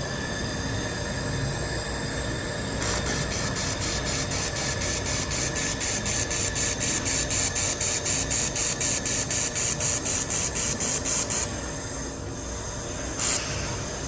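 IPG LightWELD XR handheld laser welder welding in pulse mode: from about three seconds in, a high hiss switches on and off several times a second in an even rhythm for roughly eight seconds, over a steady high whine. A brief hiss comes near the end.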